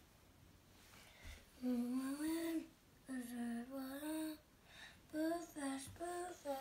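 A young boy singing a tune softly to himself in a few short phrases with brief pauses, starting about a second and a half in.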